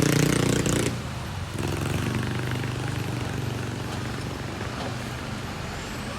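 A bus engine rumbling loudly close by, which drops off abruptly about a second in, leaving a steadier, quieter rumble of engines and road traffic. No telolet horn sounds.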